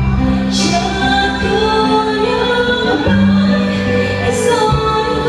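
A woman singing live into a microphone over an amplified backing track, with a low bass that shifts note every second or two.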